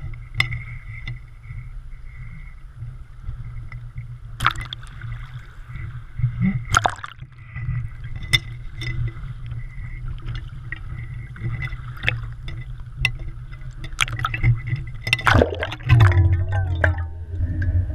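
Water heard through a GoPro's waterproof housing as the camera is lowered into the sea: a steady low rumble and gurgling, with scattered sharp knocks and a busier splashing stretch near the end.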